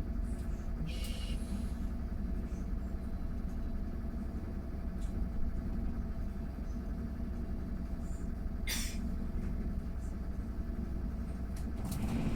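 Mercedes-Benz eCitaro G electric articulated bus riding: a steady low rumble with a faint steady electric whine and a couple of short rattles. Near the end the whine starts to rise as the bus accelerates.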